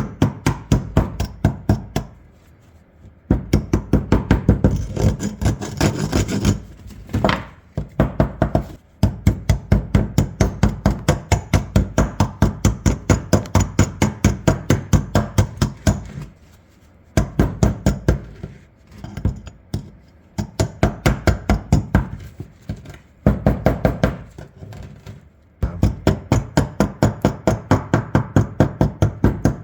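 Quick, light hammer taps on rusted shotgun barrels, about five a second in runs of a few seconds with short pauses, knocking loose the rust crust packed between the two barrels.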